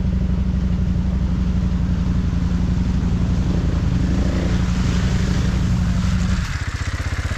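Off-road motorcycle engine running at steady revs, with a rough trail noise over it. About six and a half seconds in, the engine note drops lower.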